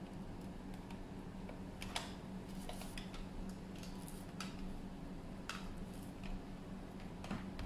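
Faint, irregular clicks and light taps from hands handling an action camera and a cloth on a plastic bubble mailer, over a steady low hum.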